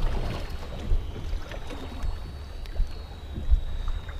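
Wind buffeting the microphone on an open boat at sea: a low rumble with gusts that peak a few times, along with faint small clicks from hands working the bait and elastic.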